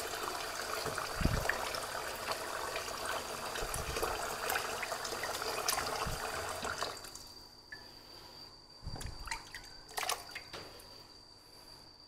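Kitchen tap running into a metal pot of raw pork in a stainless steel sink while hands rinse and turn the meat. The water stops about seven seconds in, leaving a few soft knocks and handling sounds over a faint steady high tone.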